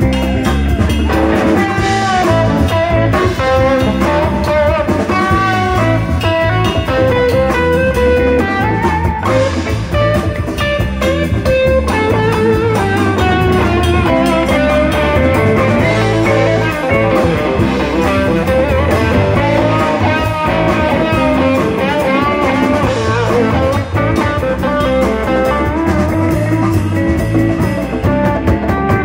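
Live band playing, guitars to the fore over a drum kit, continuous and steady in level.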